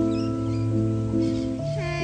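Background music of sustained, held chords that change a couple of times.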